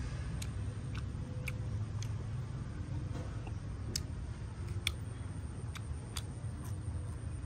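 Scattered sharp, crisp clicks, about one or two a second at uneven spacing, from breaking and chewing crunchy fried spiders, over a steady low rumble.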